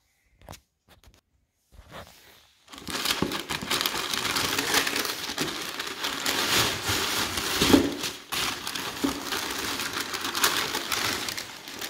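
A few faint taps, then from about three seconds in, white tissue paper crinkling and rustling steadily as a hand pulls it open.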